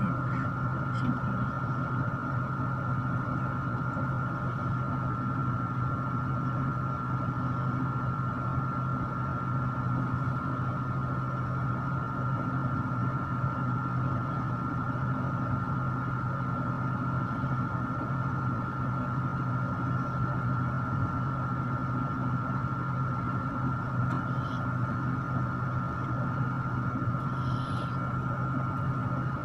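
Electric stand fan running with a steady hum and a constant thin whine above it, with a few faint light ticks near the end.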